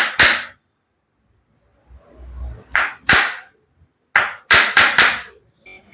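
Eight sharp strikes from a chiropractic treatment. Two come close together at the start, another pair about three seconds in, then four in quick succession near the end.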